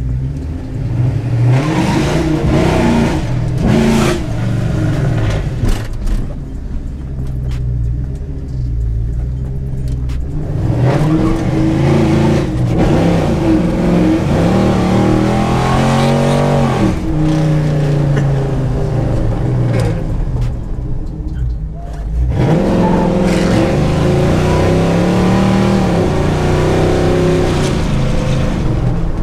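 Gen 4 6.0-litre LS V8 in a square-body Chevy truck accelerating hard, heard from inside the cab: the engine note climbs in long pulls and drops back at the shifts, once through the middle and again near the end.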